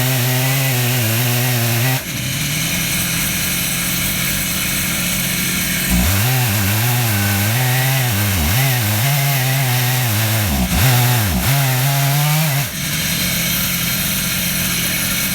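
Stihl MS 880 two-stroke chainsaw running under load in an Alaskan chainsaw mill, ripping lengthwise through a black walnut log with a 36-inch bar and ripping chain. The engine note wavers and dips briefly a few times as it cuts.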